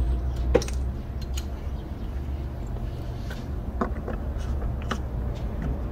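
Oil filter housing cap being seated and hand-threaded onto its housing: several light clicks and knocks spread over a few seconds, over a steady low hum.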